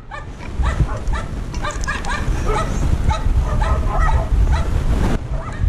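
A dog barking in a rapid string of short barks, about three a second.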